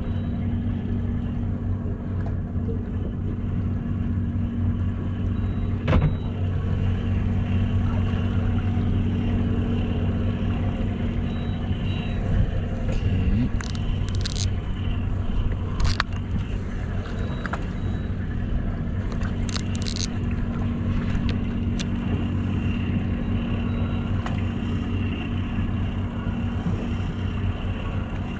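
Boat engine running steadily with a low, even hum, with a few sharp knocks on the boat, the loudest about six seconds in.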